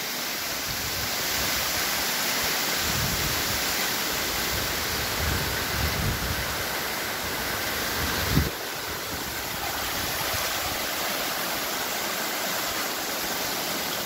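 Waterfall rushing, a steady dense roar of falling water, with a brief low thump about eight seconds in.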